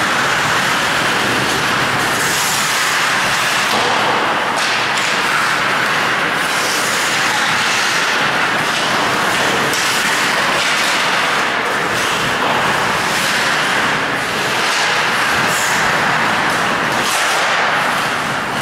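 Ice hockey skate blades hissing and scraping across the ice again and again, over a steady loud rink noise.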